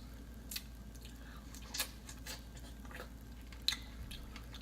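A person chewing food close to the microphone: a few short, wet mouth clicks and smacks spaced a second or so apart.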